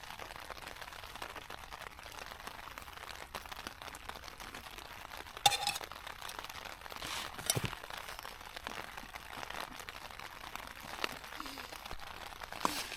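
Steady rain hissing on a tent flysheet, heard from inside the tent. A few crinkles and clinks of packets and gear being handled break through, the loudest about halfway.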